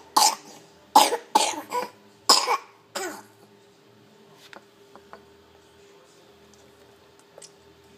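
A quick run of short coughs, about seven in the first three seconds, followed by a few faint clicks.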